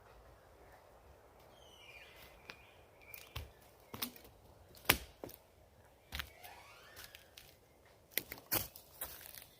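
Footsteps on the forest floor, with scattered sharp cracks and snaps of twigs underfoot and a few short bird calls in the background.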